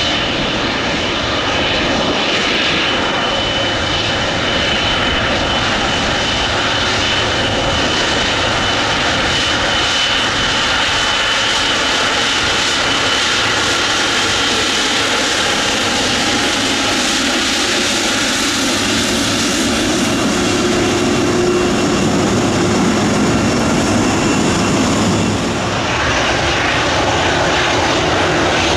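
Boeing 777's twin jet engines running at taxi power as it rolls past, a steady high whine over the rushing engine noise. About 26 seconds in the sound changes abruptly to a Boeing 737's jet engines as it taxis.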